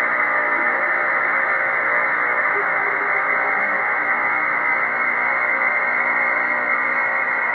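Computer-synthesized sonification of the logistic map's orbit spectrum: a dense, steady drone of many held tones sounding together, with no beat or attacks. This is the kind of rich droning texture the map gives in its chaotic regime.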